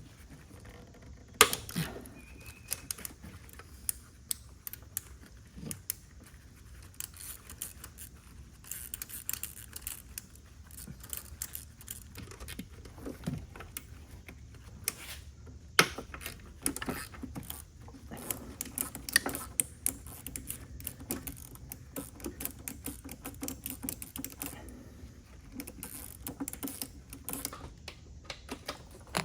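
A ratchet clicking as it turns out the 10 mm intake manifold bolts, in runs of rapid clicks, with a couple of sharper metal knocks about one and a half seconds and sixteen seconds in.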